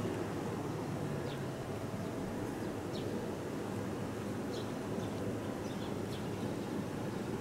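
Outdoor ambience: a steady low rumble with faint, short high chirps of small birds every second or two.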